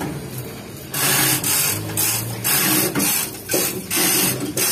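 Chain hoist being worked to move a truck differential axle hung on its chains, giving repeated short bursts of ratcheting and chain rattle. A steady low hum runs underneath.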